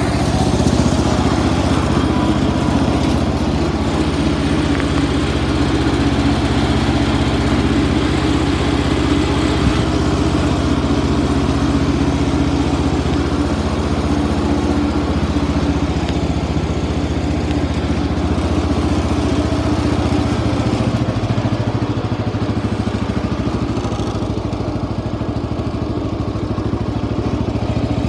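Cub Cadet 169 garden tractor's Kohler single-cylinder engine running steadily as the tractor drives along, dipping slightly in level for a few seconds in the second half.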